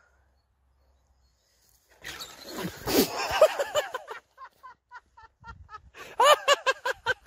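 A loud human cry about two seconds in, followed by laughter in quick, rhythmic bursts.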